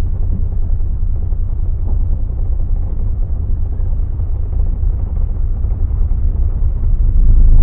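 City bus running, heard from inside: a steady low rumble of engine and road noise, getting louder near the end.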